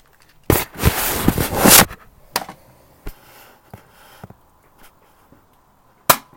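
A burst of noise lasting over a second about half a second in, then a few faint clicks, then a single sharp snap near the end: the shot of a P698 BB pistol.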